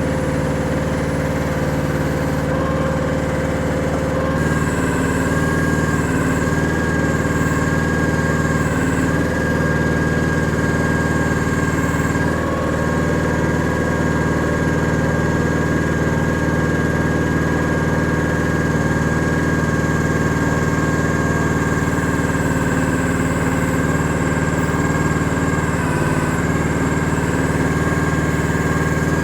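Chinese mini excavator engine running steadily while the bucket is worked. A steady high whine sets in about four seconds in and holds.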